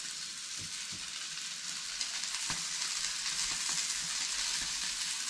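Flour-coated Indian mackerel (bangda) sizzling in freshly added oil on a hot tava, a steady frying hiss that grows a little louder about two seconds in, with a few faint clicks.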